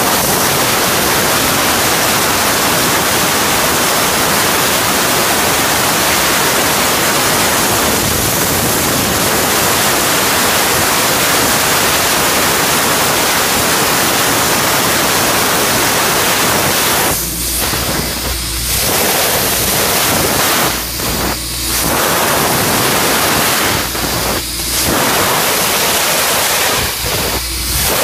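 CNC laser cutting machine cutting holes in sheet steel: a loud, steady hiss of the gas jet and cut. In the second half the hiss breaks off briefly several times.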